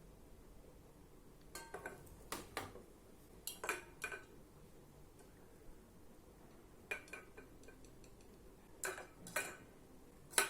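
Hard plastic clicks and clacks of a speed cube's layers being turned, in quick clusters of two or three with pauses between.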